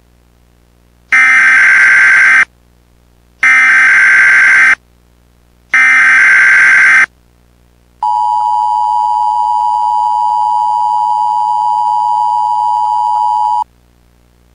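Emergency Alert System signal: three short bursts of the screeching SAME data header, about a second apart, then the steady two-tone EAS attention signal held for about five and a half seconds before it cuts off sharply.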